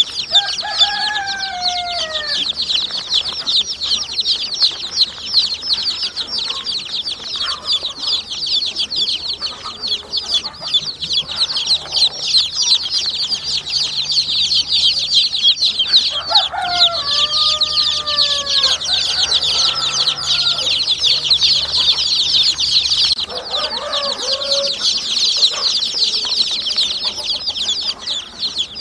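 A brood of baby chicks peeping nonstop in a dense, high-pitched chorus. A few lower calls that fall in pitch come through about a second in, twice in the middle and once more later on.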